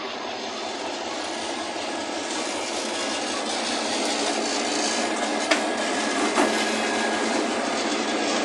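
Diesel-electric freight locomotives passing close by, their engine and wheel noise growing louder as they draw level. Two sharp clanks come about halfway through.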